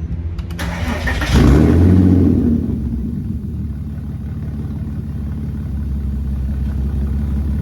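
2004 Porsche Cayenne engine cranking, catching about a second in and flaring up, then settling into a steady idle. The exhaust is loud, which the owner puts down to a broken muffler.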